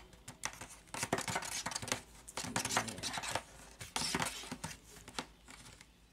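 A plastic action figure spun by hand on its back shell, scraping and rattling against the surface in several short bursts, with sharp clicks of the plastic limbs and hands knocking as it is flicked round.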